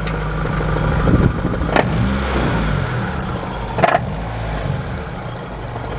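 Car engine running and revved once, its pitch rising then falling back, with two sharp knocks about two seconds apart. It is an engine knock from the bottom end at the crankshaft, diagnosed as a flywheel problem.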